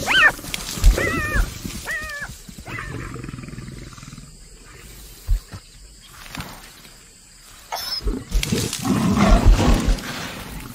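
Black-backed jackal giving four short, high yelps in the first three seconds. Near the end a lion snarls loudly at it, the loudest part, as it drives the jackal off the carcass.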